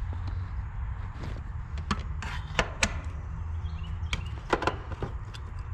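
Sharp metallic clicks and knocks, about seven of them from about two seconds in, as a screwdriver works at the run capacitor's terminals and spade connectors inside an AC condenser's control panel. A steady low rumble sits underneath.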